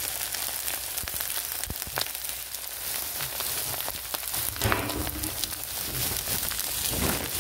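Cheese-and-vegetable fried rice sizzling and crackling in a hot pan, with a metal spoon stirring and scraping through it.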